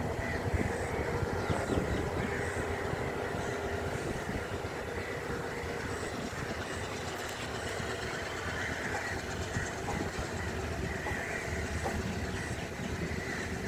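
Passenger train running on the rails: a steady rumble with light wheel clatter and a faint steady whine.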